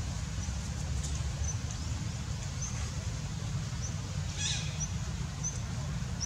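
Outdoor ambience: a steady low rumble with short, faint, high chirps every second or so, and one brief, louder squeaky call about four and a half seconds in.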